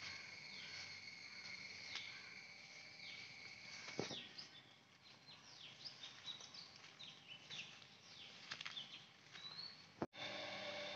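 Faint garden ambience: a steady high insect drone, with many short, downward-sliding bird chirps from about three seconds in. A single sharp tap about four seconds in, and the sound drops out for a moment near the end.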